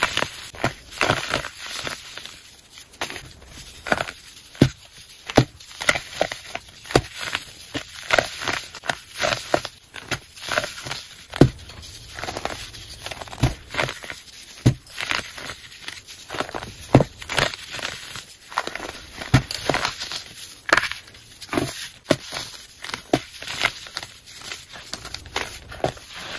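Hands crushing and crumbling chunks of crispy baking soda: an irregular run of crisp crunches and crackles, several a second, with louder sharp snaps now and then.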